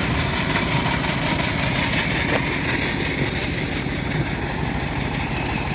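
An engine running steadily at an even, low speed, with no revving.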